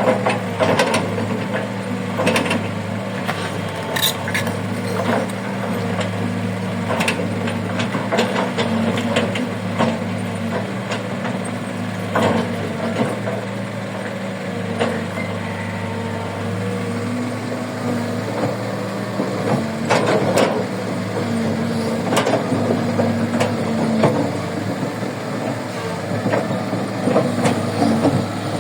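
Diesel engine of a Kobelco 135 excavator running steadily, with scattered knocks and clatters through it.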